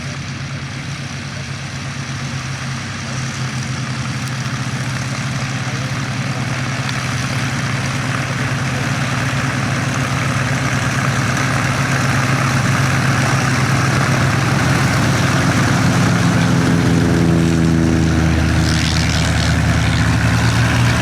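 Piston-engined propeller aircraft running at low power, growing steadily louder, with the engine note shifting in pitch near the end.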